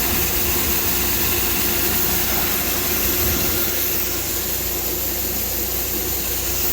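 Farm tractor engine running steadily at idle, with a constant hum and a steady rushing hiss over it.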